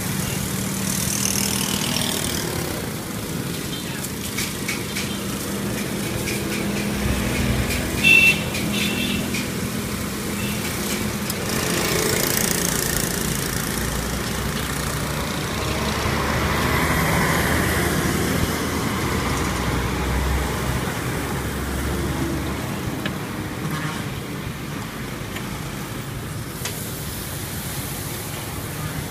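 Passing road traffic: motor vehicles going by in a steady street din, with a rumble through the middle and a short, loud tone about eight seconds in.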